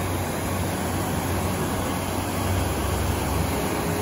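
Water pouring over a reservoir dam's overflowing spillway, a steady rushing sound with a deep low rumble.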